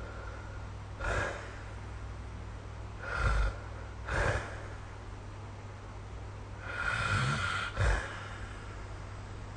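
A sleeping person snoring and breathing in short, irregular snorts, five in all, the longest about seven seconds in, over a steady low background hum.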